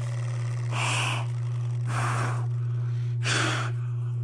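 A person blowing breath into freezing hands to warm them: three breathy puffs about a second apart, over a steady low electrical hum.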